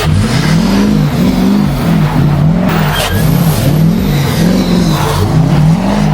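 Ford 6.0 Powerstroke V8 turbodiesel revving up and down over and over, its pitch rising and falling about every half second as the truck drifts in snow.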